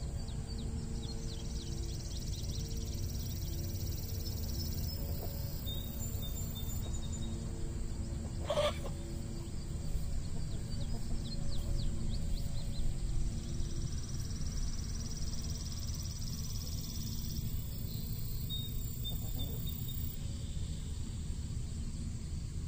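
Soft background music with long held notes over a low steady rumble. A chicken gives one short call about eight and a half seconds in.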